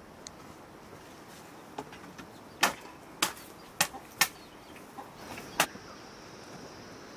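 Five sharp wooden knocks in about three seconds as pieces of wood are handled and set down. A steady high insect buzz starts near the end.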